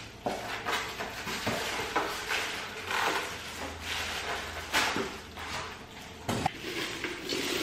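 Packaging being handled during unboxing: cardboard and plastic rustling and scraping in irregular bursts, with a sharper knock about six seconds in.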